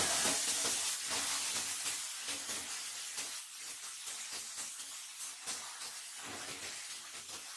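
Compressed-air spray gun hissing as it sprays a glaze coating onto ceramic toilet bodies. The hiss is loudest for about the first second, then carries on more softly in uneven spurts.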